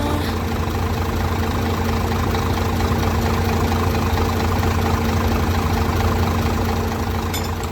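Isuzu Forward truck's diesel engine idling steadily, a low even hum.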